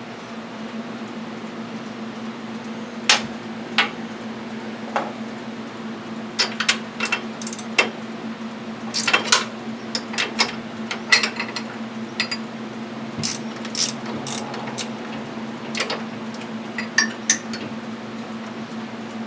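Metal hand tools clinking and clicking as sockets and a ratchet are picked out and handled: scattered sharp clinks, busiest in the middle, over a steady low hum.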